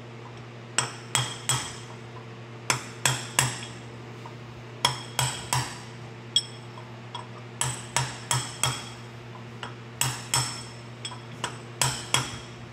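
Hammer striking a brass punch to drive a crankshaft oil seal into the reduction gear case of a John Deere 720 two-cylinder diesel. The taps are light and ringing, coming in quick runs of two to four with short pauses while the punch is moved around the seal. A steady low hum runs underneath.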